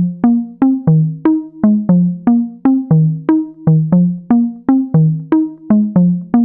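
Background music: a synthesizer line of short plucked notes, about three a second, stepping up and down through a repeating low melody.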